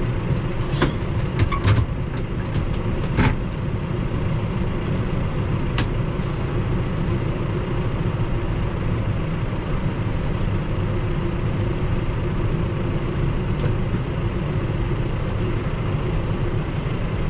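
John Deere 6130R tractor engine running steadily as the tractor drives, with a few sharp clicks or knocks in the first few seconds and two more later on.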